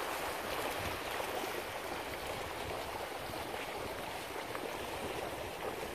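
Steady wash of splashing water from a school of ladyfish breaking the surface around the boat.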